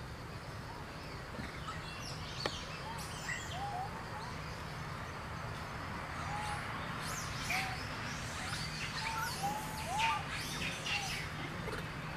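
Birds chirping and calling in the trees: many short chirps and little rising-and-falling whistles, busiest in the second half, over a steady low hum.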